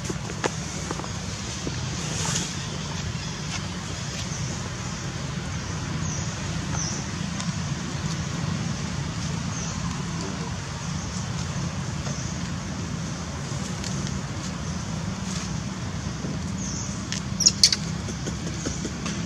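Steady low outdoor rumble, with short high chirps now and then and a quick cluster of sharp clicks near the end.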